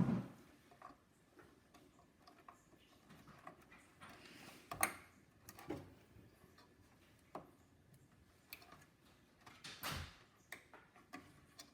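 Scattered faint clicks and taps of RAM sticks being handled and pressed into motherboard memory slots, the slot latches snapping shut; the sharpest clicks come at the start, midway and near the end.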